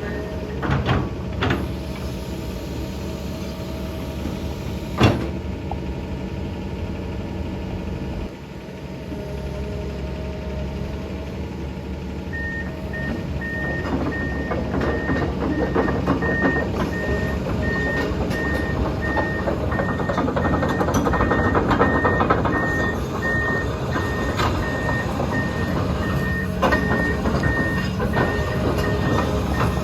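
Komatsu PC210-10 hydraulic excavator's diesel engine running, with a sharp click about five seconds in. From about twelve seconds in, the engine works harder and the machine's warning alarm beeps steadily at an even pace.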